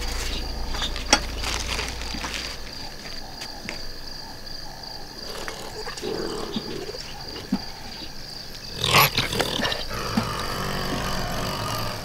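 Honey badger rummaging and crunching through rubbish in a bin, short rustles and clicks over a steady high chirring of crickets. About nine seconds in comes a loud, brief animal snarl, followed by lower growling.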